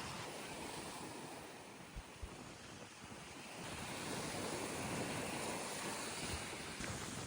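Waves washing onto a beach, swelling louder about halfway through, with wind rumbling on the microphone.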